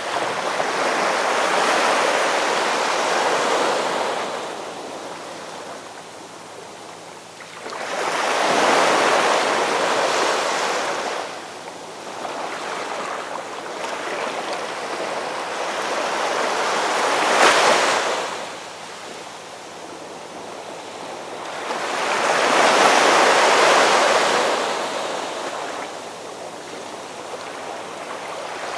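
Ocean waves breaking on a shore, each swelling into a rush of surf and washing back, about four times, one every six to seven seconds, with a sharper crash near the middle.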